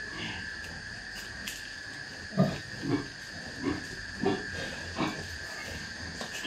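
Domestic pig grunting: five short grunts about two-thirds of a second apart, starting a little over two seconds in, over a steady high-pitched whine.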